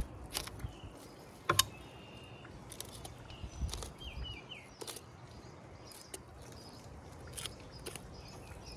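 Fillet knife cutting along a striped bass's backbone on a wooden table, with several sharp clicks and knocks, the loudest about a second and a half in. A bird chirps a few times around the middle.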